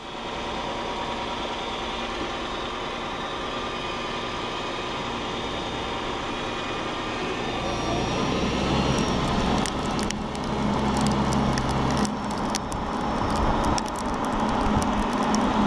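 Driving noise of a Lexus sedan picked up by a camera under the car beside the front lower control arm: a steady rush of tyre and road noise with the engine beneath it. About halfway through it grows louder, with many scattered sharp crackles and ticks.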